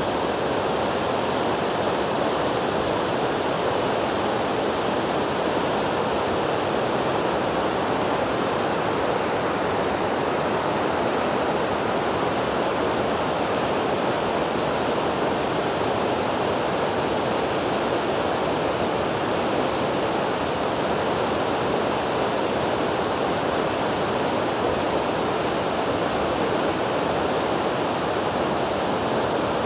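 River water rushing through a dam's row of open sluice gates and churning white below them: a steady, loud rush of falling water.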